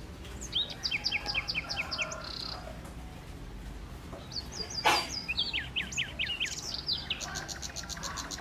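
Songbirds singing in runs of quick repeated chirps, the last a fast, even trill near the end. A sharp click about five seconds in.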